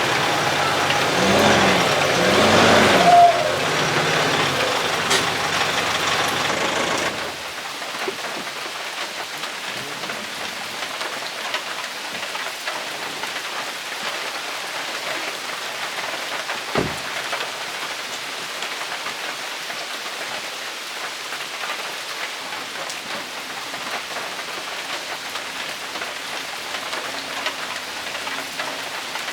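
Steady rain falling. For the first seven seconds or so a vehicle's engine is heard under it, driving in the rain; then it cuts abruptly to rain alone. There is one short thump about halfway through.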